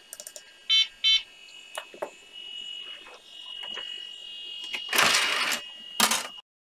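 Two short electronic beeps just under a second in, among light clicks, then a steady high tone and two loud bursts of hiss before the sound cuts off suddenly.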